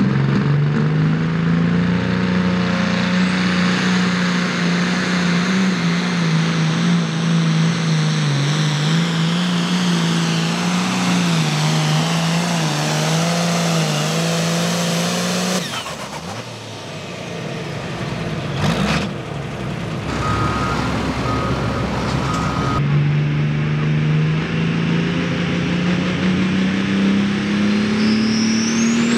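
Pulling tractor engines at full throttle hauling a sled: a New Holland pulling tractor runs hard and steady for about the first half, then after a quieter stretch with a sharp knock and a repeated beep, a second pulling tractor comes in at full throttle, its engine rising in pitch near the end.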